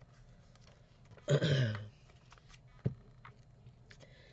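A person clearing her throat once, a short low sound falling in pitch, followed about a second later by a single light tap.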